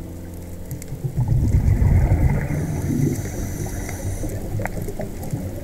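Low rumbling, gurgling water noise heard underwater, louder from about a second in.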